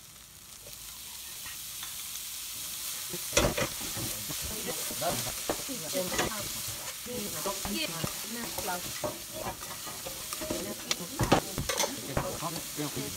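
Ground beef sizzling in a hot non-stick frying pan of kimchi, the sizzle building over the first couple of seconds as the meat goes in. A spatula scrapes and clicks through the stir-fry, with two sharp knocks against the pan, one a few seconds in and one near the end.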